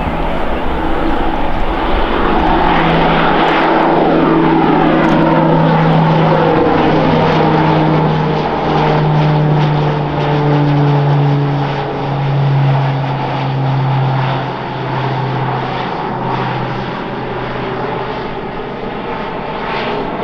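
PZL-Mielec M28 Skytruck's twin Pratt & Whitney turboprop engines at take-off power as the aircraft lifts off and climbs past: a loud, steady propeller drone. Its pitch falls gradually from about halfway through as the aircraft moves away, and it grows slightly quieter near the end.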